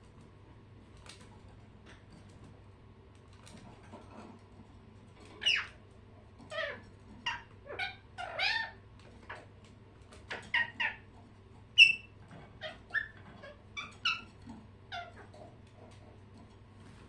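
Pet birds calling: a run of a dozen or so short chirping calls that begins about five seconds in. The loudest, sharpest call comes a little after the middle. The calls stop a couple of seconds before the end.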